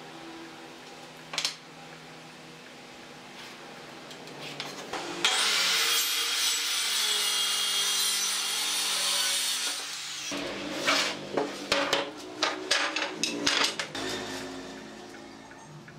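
A handheld circular saw cutting through a wooden board for about five seconds, starting and stopping abruptly. It is followed by a quick run of sharp wooden knocks as the cut pieces are handled on the bench.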